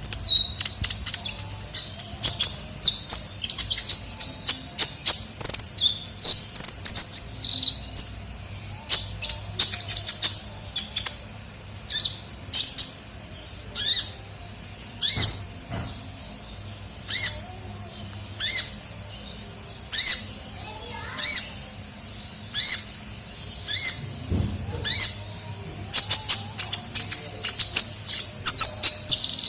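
Sunbird song: a long run of sharp, high-pitched chirps and short trills, about one to two a second, packed into rapid trills in the first several seconds and again near the end.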